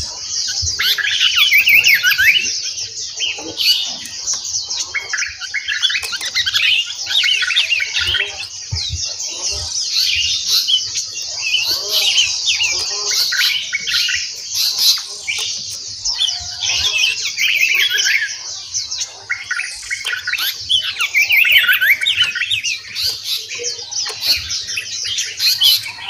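Several caged songbirds calling at once: a dense, continuous chorus of overlapping chirps, whistles and twittering phrases that rises and falls in loudness without a pause.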